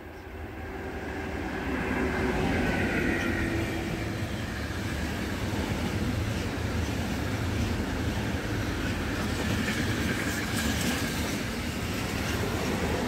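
DB Cargo class 152 electric locomotive passing at speed at the head of a container freight train, with its wagons rumbling and clattering over the rails behind it. The sound builds over the first two seconds as the locomotive comes by, with a whine that drops slightly in pitch as it passes, then a steady rush of wheels on rail with scattered clicks.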